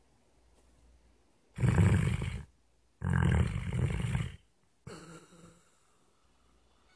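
Sleeping dog snoring: two loud, rattling snores, then a fainter third.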